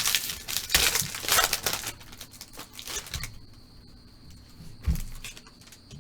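Plastic-foil trading card pack wrapper being torn open and crinkled for about two seconds, followed by lighter handling rustle and a single low thump about five seconds in.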